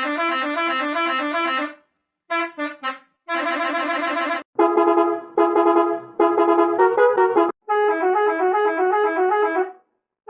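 A string of musical vehicle horn clips: about five short horn melodies, each playing brassy pitched notes that step up and down, cut apart by brief silences.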